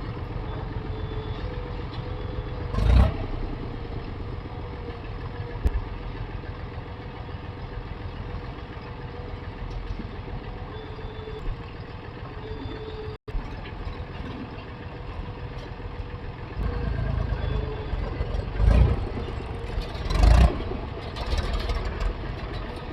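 Diesel engines of heavy machinery running steadily, with a brief louder surge a few seconds in and more surges near the end.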